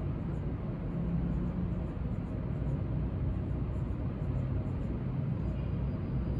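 Marker writing small zeros on a whiteboard, a string of faint short strokes over a steady low rumble.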